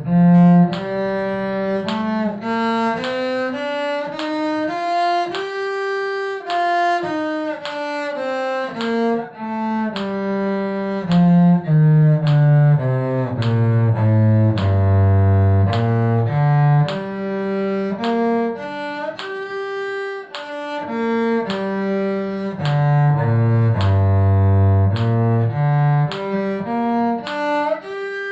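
Cello bowing a scale exercise, stepping note by note up and down across two octaves, about two notes a second.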